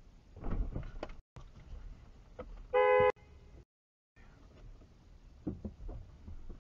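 A car horn gives one short honk about three seconds in. Low rumbles and thumps come before and after it.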